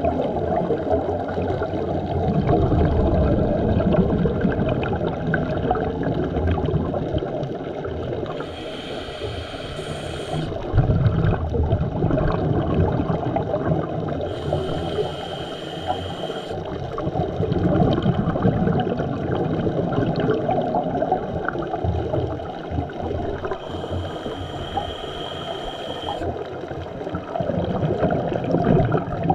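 Scuba diver breathing through a regulator underwater: three hissing inhalations, each about two seconds long, over a steady low rumble of exhaled bubbles and water noise.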